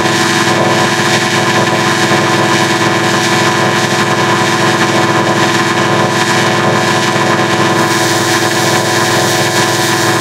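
Digitally effect-processed logo audio, warped into a loud, steady drone of many stacked tones with a fast flutter underneath.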